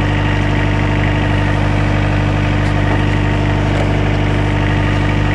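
Excavator's diesel engine idling steadily, left running so its alternator recharges the battery.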